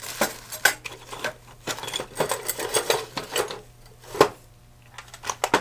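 Small steel tools, long-reach taps, clinking and rattling against each other as they are handled, with one louder knock about four seconds in. A steady low hum runs underneath.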